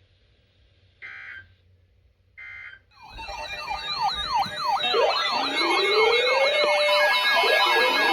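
Two short buzzy EAS data bursts, about a second and two and a half seconds in. From about three seconds in, many emergency sirens sound at once, wailing and yelping over one another and growing louder.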